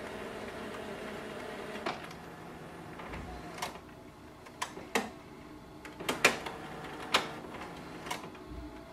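Canon MAXIFY GX3020 all-in-one printer running a flatbed scan. A steady motor hum lasts about two seconds, then stops, and is followed by about eight sharp mechanical clicks and clunks spread unevenly over the rest.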